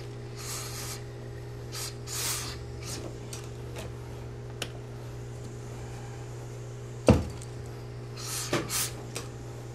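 Tailor's steam iron pressing trousers: several short hisses of steam, and one heavy thump of the iron about seven seconds in, over a steady low hum.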